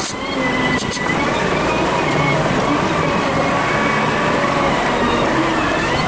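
Volvo BM 4300 wheel loader's diesel engine and hydraulics working steadily as the bucket pushes dirt, heard from the operator's seat and sped up fivefold, with a wavering whine over the engine and a couple of short knocks near the start and about a second in.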